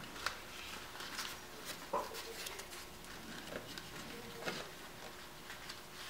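Nylon seat belt webbing being worked by hand through a metal belt adjuster: faint rustling and sliding of the strap with scattered light clicks and taps.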